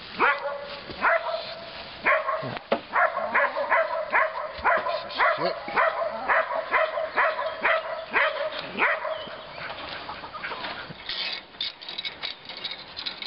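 Dog barking over and over, about two to three barks a second, stopping about nine seconds in; quieter scattered clicks follow.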